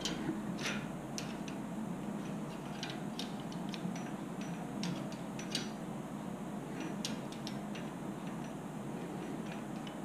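Faint, irregular metallic clicks and taps of a 17 mm steel wrench being handled against the damper-rod lock nut and spring of a motorcycle fork cartridge.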